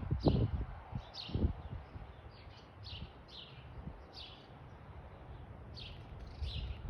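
Small birds chirping repeatedly at a feeder: short, downward-sliding chirps, several a second at times. A few low thumps sound in the first second and a half.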